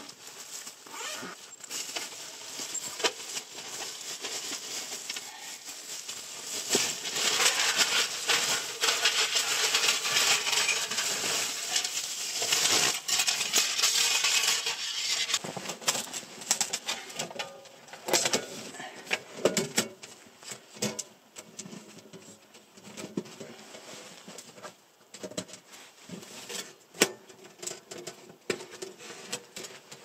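Fabric and a stuff sack rustling as gear is handled, loudest in the middle, then light metallic clicks and clinks as the thin sheet panels of a folding titanium tent stove are unfolded and clipped together.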